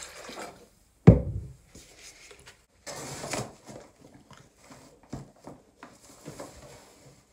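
Containers handled on a hard counter: a sharp thump about a second in, a short burst of rustling around three seconds, and light knocks and clicks in between.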